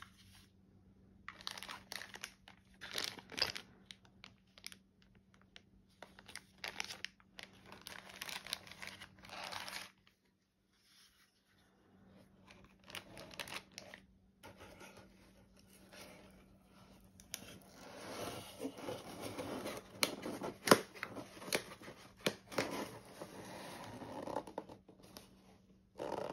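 Plastic and paper packing crinkling and a cardboard box rustling and scraping as a pistol is packed back into its box, with a few sharp clicks and taps. The handling stops briefly about ten seconds in, then comes back in a longer, denser stretch of crinkling.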